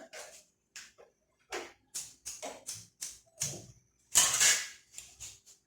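Aluminium foil being handled and crinkled in a run of short, crisp rustles, with one longer, louder crumple about four seconds in.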